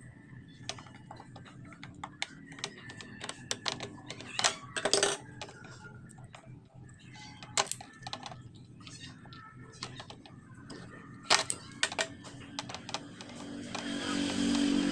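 Scattered clicks, taps and sharper knocks of a screwdriver and wire strippers working on the brass terminals and screws of a plastic power socket. Near the end a steady motor drone builds up.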